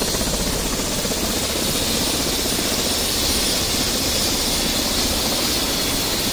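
Motorcycle engine running at road speed, a fast steady pulsing under a rush of wind noise on the camera microphone.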